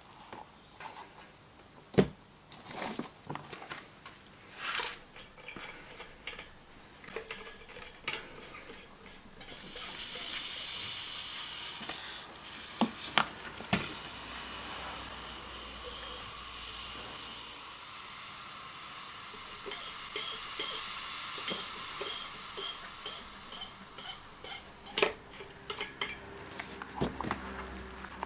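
Handling knocks and light clatter of small metal parts on a bench. About ten seconds in, a steady hiss of air through a hose and rubber cup starts; it stops near the end, before more knocks.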